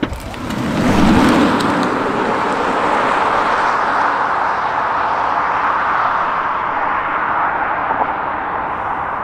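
A 2022 Tesla Model Y Long Range dual-motor electric SUV pulling away hard from a standstill past a camera at the roadside. There is a sharp click at the start, then a rush of tyre and road noise that swells within the first second and slowly fades as the car speeds off.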